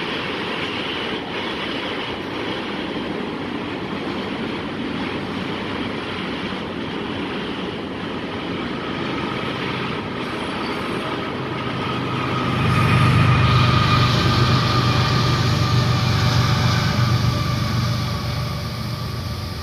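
CSX mixed freight train rolling past: a steady rumble of freight cars' wheels on the rails. About two-thirds of the way through, a louder low drone joins in and holds.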